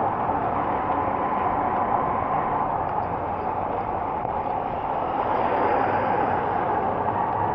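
Steady rushing noise of heavy rain falling, even throughout with no distinct impacts.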